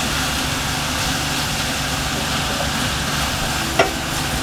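Steady hiss and hum of a pan of cabbage and smoked fish cooking while it is stirred with a wooden spoon. Near the end the spoon knocks once against the pan.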